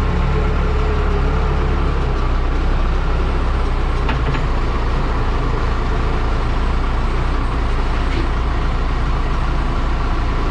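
Case backhoe loader's diesel engine running steadily at an even speed, with a deep, constant hum.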